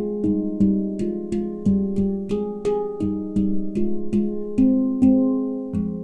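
McCarthy handpan in nitrided steel, tuned to an F Low Pygmy scale with 9 notes, played with the hands: an even run of struck notes, about three a second, each ringing on under the next.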